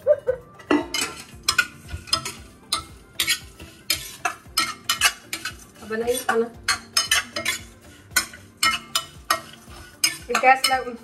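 Metal spoon clinking and scraping against a pan, stirring cashews, almonds and walnuts roasting in ghee, in a run of irregular sharp strokes about two to three a second.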